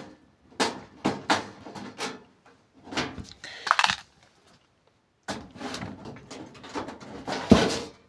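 Old desktop PC case being handled while a screw is taken out of its back: a run of knocks, clicks and scrapes, with a short pause past the middle and a sharp knock near the end.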